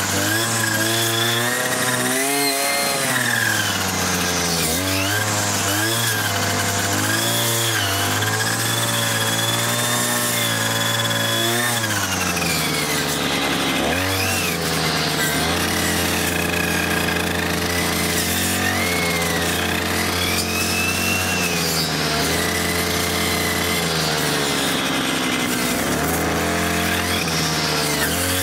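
Petrol string trimmer fitted with a circular saw blade, its engine rising and falling in pitch as the spinning blade chops through a watermelon. The pitch swings up and down quickly at first, then settles into a steadier run after about twelve seconds.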